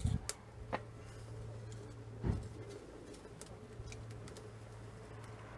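Wood fire crackling inside a homemade welded steel rocket stove: scattered sharp ticks and pops, with one dull knock a little over two seconds in.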